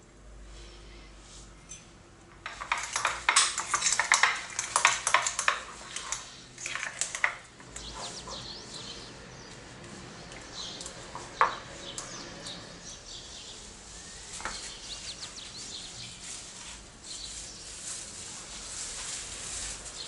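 Metal fork stirring and scraping in a white ceramic bowl as filling ingredients are mixed, with a few seconds of rapid clinking against the bowl, then softer scraping with an occasional sharp clink.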